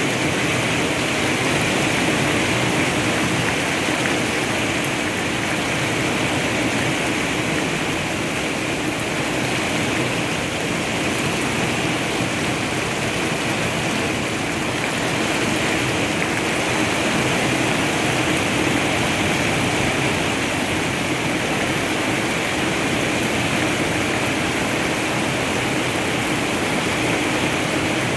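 Heavy rain falling steadily, an even hiss with no thunderclap.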